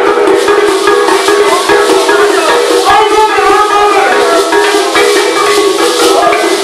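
Traditional Igbo masquerade music played loud: dense, fast percussion with rattles and drums over a steady droning tone. A melody line slides up and down about halfway through.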